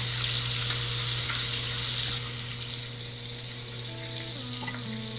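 Bananas frying in a pan on a stovetop: a steady sizzle. Faint music comes in near the end.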